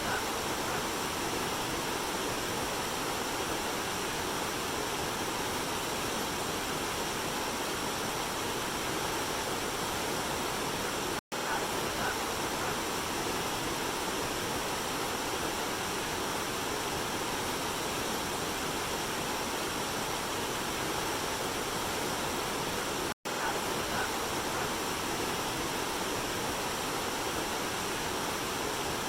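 A waterfall and river rushing steadily, an even roar of water with no change in pitch. It cuts out for an instant twice, about 11 and 23 seconds in.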